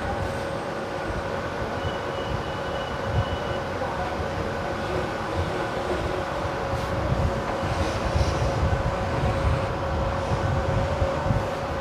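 Steady mechanical hum with several steady tones over an uneven low rumble.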